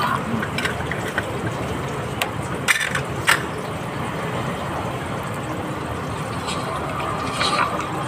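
Steady street traffic noise, with two short clicks about three seconds in.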